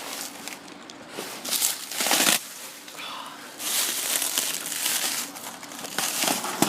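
Crinkling and rustling handling noise, in a short burst about two seconds in and a longer stretch from about three and a half seconds.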